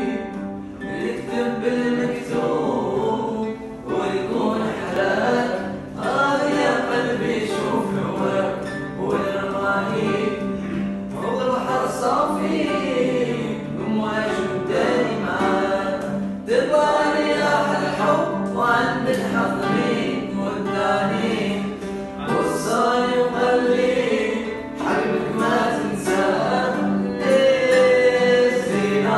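A group of male voices singing a song together, accompanied by two strummed acoustic guitars.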